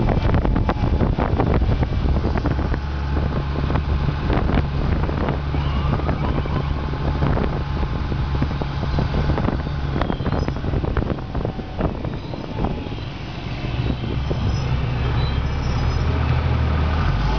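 Armored military vehicle on the move: a steady low engine drone with frequent rattles and knocks over it.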